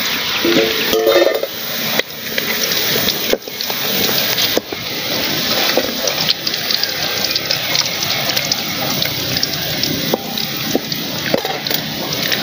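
Fish pieces sizzling and crackling in hot oil in a steel kadai, a steady dense crackle.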